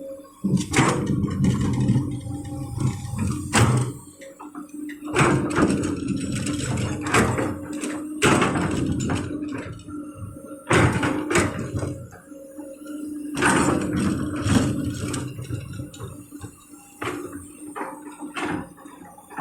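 Komatsu PC200 hydraulic excavator working, with a steady engine hum under repeated heavy knocks and clanks coming in clusters every few seconds.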